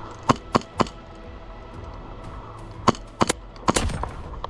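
Airsoft gun firing single shots: three quick sharp snaps near the start, then a faster cluster of about five more around three seconds in.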